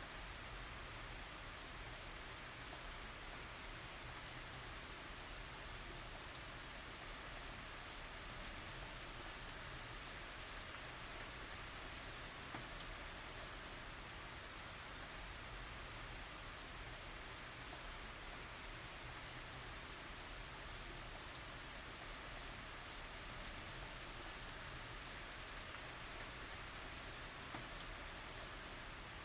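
Steady light tropical rain falling on surfaces, with many small drops ticking.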